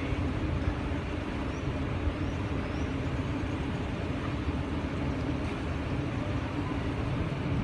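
Diesel engine of a Grove mobile crane running steadily as a low rumble while it holds and lowers a walkway section.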